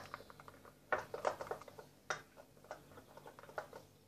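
Spatula stirring a soap-and-salt slime in a glass bowl, making irregular light clicks and taps against the glass in small clusters.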